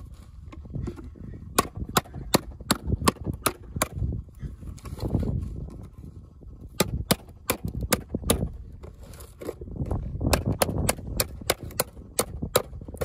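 Sharp metallic taps in three runs, about two or three a second: a stone hammering a knife blade into the lid of a tin can to cut it open.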